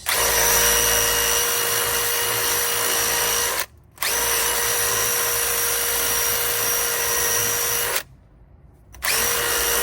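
Cordless power drill spinning a wire brush to scrub rust and debris off the hub mounting surface. It runs at a steady whine in three bursts, stopping briefly twice.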